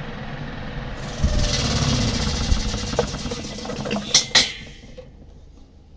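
Koinor spin dryer's drum running down after a short spin: a low hum, then a loud hissing rush from about a second in, and two sharp clicks just after four seconds before it goes quieter near the end.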